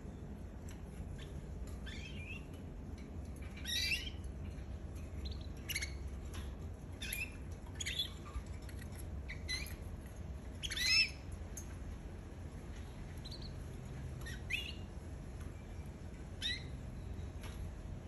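Canary giving short, separate chirping calls, about one every second or so, with the loudest about two-thirds of the way through, over a steady low hum.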